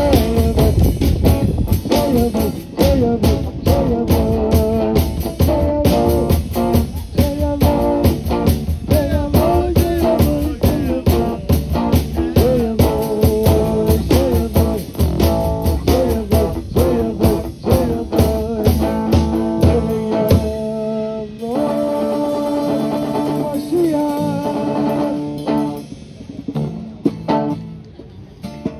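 Live rock band playing: electric guitars and drum kit driving along, then about twenty seconds in the drums drop out and held guitar chords ring on and fade as the song comes to its end, with a last hit just before the end.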